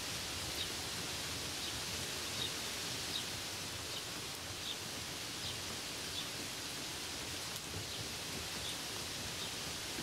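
Steady rain falling on grapevine leaves, an even hiss. Faint short high chirps repeat roughly every three-quarters of a second.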